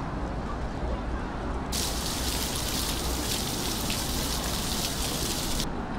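Water from a tiered fountain splashing into its basin: a steady hiss that starts abruptly about two seconds in and stops abruptly near the end. Before it there is only a low steady background rumble.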